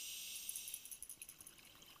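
Scuba diver breathing through a regulator, heard underwater: a steady breath hiss for about the first second, then fine crackling bubbles toward the end.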